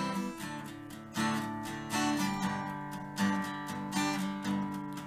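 Background music: acoustic guitar strumming chords, with a new chord struck every second or so.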